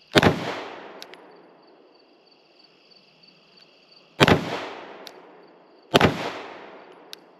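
Three gunshots: one right at the start, then two more about four and six seconds in, less than two seconds apart. Each is a sharp crack followed by a long fading echo.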